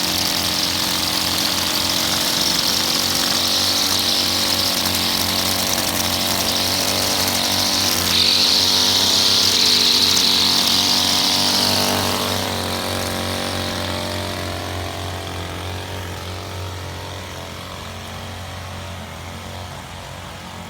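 Gas string trimmer running at a steady high speed with its line hissing through grass, loudest in the middle and slowly getting fainter over the last several seconds.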